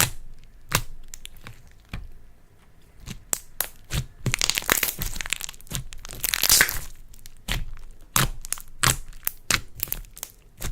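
Slime worked by hand, giving sharp pops and clicks spaced every second or so, with a dense run of crackling about four to seven seconds in.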